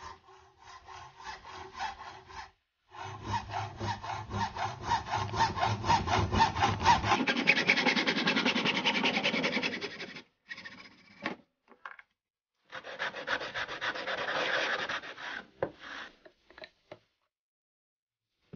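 Fast back-and-forth scraping strokes of a hand tool working a piece of material. They come in three runs with short pauses, the middle run the longest and loudest.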